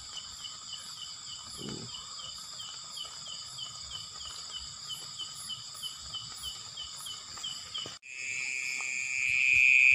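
Night chorus of crickets and other insects: several steady high trills, with one cricket chirping about three times a second. About eight seconds in, the sound cuts off briefly and a louder, steady insect trill takes over.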